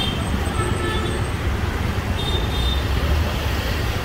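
City road traffic heard from a moving motorbike: a steady low rumble of engines and wind on the microphone, with faint vehicle horn toots twice.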